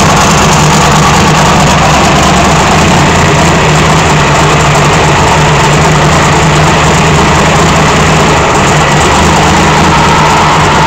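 Twin-turbocharged drag-racing snowmobile engine idling loudly and steadily.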